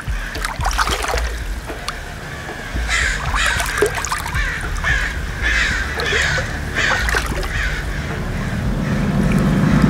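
A bird giving a string of harsh, repeated calls, about one every two-thirds of a second from about three seconds in to about eight seconds in, over a steady low rumble. A low hum swells near the end.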